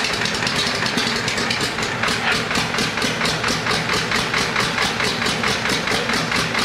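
Armstrong Siddeley Cheetah IX seven-cylinder radial aircraft engine running steadily, driving its propeller, with a rapid, even beat of firing pulses.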